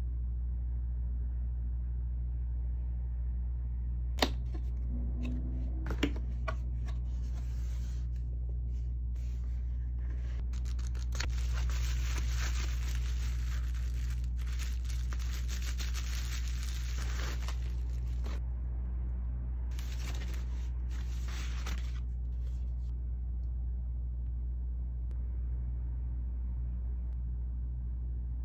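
Bubble wrap crinkling and rustling in the hands as a camera body is unwrapped, in two long spells, over a steady low hum. Two sharp knocks come a few seconds in.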